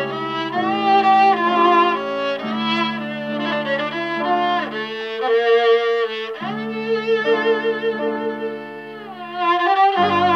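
Uzbek gijjak, a bowed spike fiddle, playing a csárdás melody with wide vibrato, over sustained chords from an electronic keyboard that change every couple of seconds.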